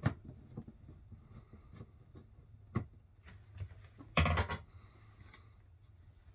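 Hand work on an RV ceiling speaker with a screwdriver: a few light clicks and a short louder knock about four seconds in, over a low steady hum.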